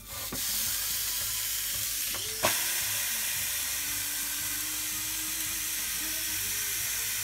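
Ribeye steak sizzling steadily on the hot ribbed plates of a Tefal Optigrill XL contact grill, the hiss starting as the meat goes down. One sharp clack about two and a half seconds in.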